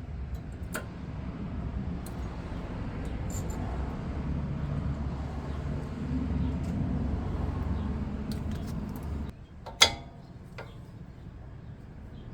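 A low rumble that cuts off suddenly about nine seconds in, then a sharp metal click of a brake pad being pushed into place in the caliper bracket, with a few fainter clicks.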